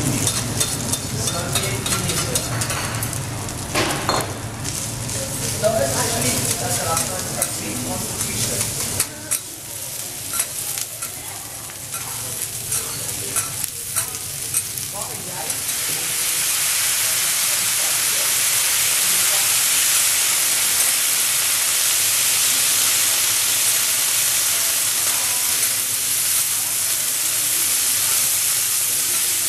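Teppanyaki griddle cooking: metal spatulas click and scrape on the hot plate. About halfway through, a loud, steady sizzle sets in as food hits the hot steel.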